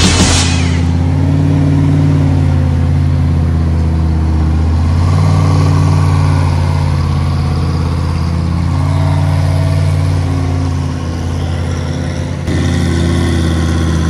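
Lamborghini Huracán GT3 race car's V10 idling, a low steady note that shifts slightly in pitch a few times, briefly dips, then steps back up abruptly about twelve seconds in.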